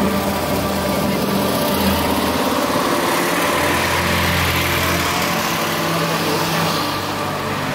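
Several classic cars rolling past slowly in a procession, their engines running at low revs.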